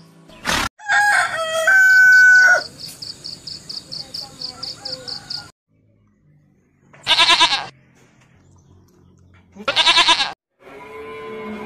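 A rooster crows about a second in, followed by a fast run of high chirps. Later come two wavering sheep bleats a few seconds apart.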